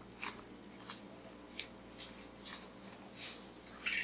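A series of short, scratchy rustles and clicks from a plastic yo-yo and its string being handled, more of them crowding together near the end.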